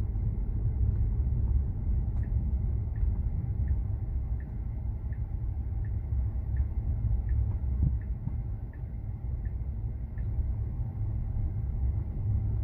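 Low, steady road and tyre rumble inside the cabin of a Tesla electric car moving slowly, with the turn signal ticking evenly, about one tick every three-quarters of a second, for several seconds before stopping.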